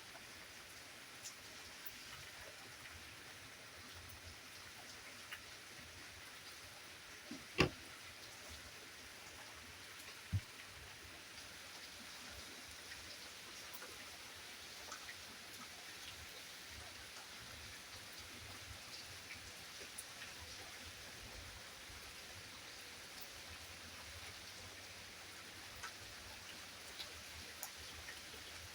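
Steady light rain with scattered drips landing on a surface. A single sharp knock sounds about seven and a half seconds in, and a smaller one a few seconds later.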